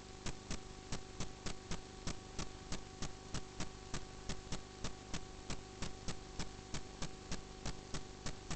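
Regular ticking, about three sharp ticks a second at an even pace, over a steady low electrical hum.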